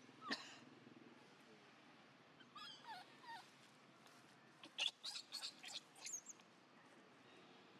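Baby monkey giving high-pitched squeals and cries: a couple of wavering calls about two and a half to three and a half seconds in, then a quick run of short, sharp squeaks around five to six seconds.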